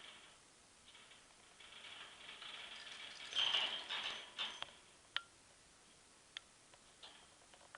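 Budgie scrambling and flapping about a wire cage: a rustling, rattling stretch lasting about three seconds, then a few sharp clicks on the cage wire.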